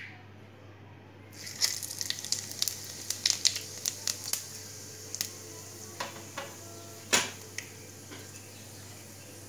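Cumin seeds sizzling in hot oil in a pan, beginning about a second in, with frequent sharp crackles and pops that thin out toward the end: the seeds tempering in the oil.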